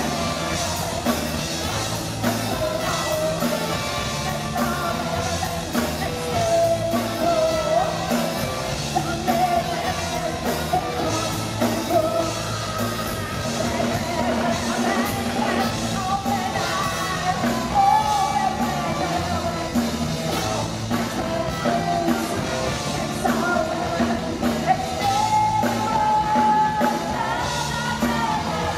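Live band music with saxophone, trumpet, trombones, electric guitar and drum kit, and a woman singing over them.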